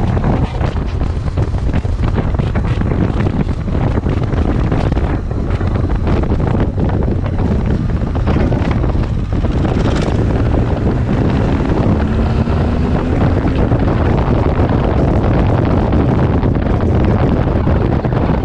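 Heavy wind noise buffeting the microphone, with a BMW R 1200 GS boxer-twin motorcycle running underneath. A faint rising engine note comes through about two-thirds of the way in.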